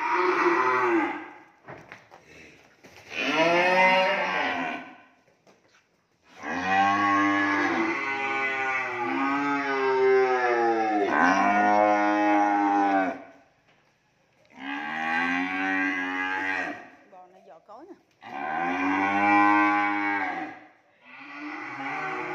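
Cattle mooing again and again: about six long, drawn-out moos with short pauses between them, the longest lasting around six seconds.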